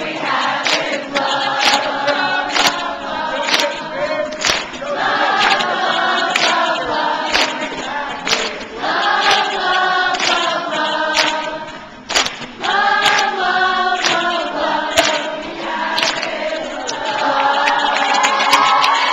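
A large crowd singing a song together, loud and a little ragged, to an acoustic guitar, with sharp beats about twice a second. The singing drops out briefly about two-thirds of the way through, then comes back louder.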